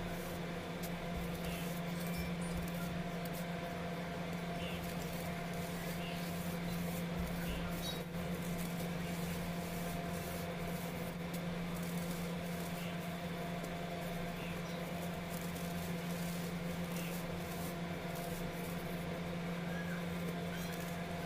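Pressed baking soda crumbled and rubbed between fingers, giving many faint, soft gritty crunches as the powder breaks and sifts. A steady low hum runs under it and is louder than the crunching.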